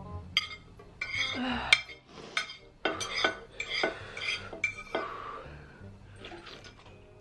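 A metal utensil scraping and clinking against a ceramic plate as the last of the sauce is scooped up: a string of sharp clinks with short ringing, a few each second, thinning out over the last two seconds.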